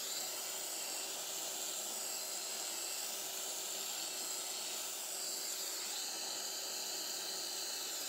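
Butane soldering iron with its tip removed, used as a hot-air torch, hissing steadily as it heats the drone's plastic prop guards to reshape them.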